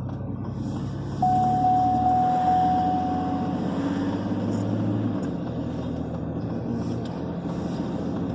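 A vehicle's engine running steadily, with a single steady high tone, like a chime or beep, lasting about two seconds from about a second in.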